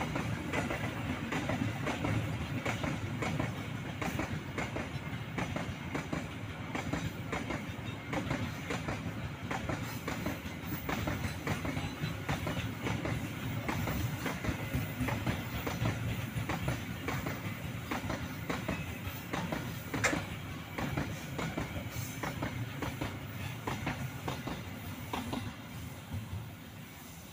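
Freight train of open hopper wagons rolling past close by: a steady rumble with a dense clickety-clack of wheels over the rail joints. There is one sharper clank about two-thirds of the way through, and the sound dies away near the end.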